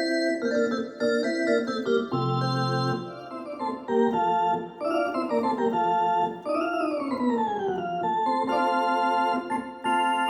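Yamaha DX7 FM synthesizer playing a keyboard patch: chords and a melody line, with one long downward pitch slide lasting about a second and a half, starting about six and a half seconds in.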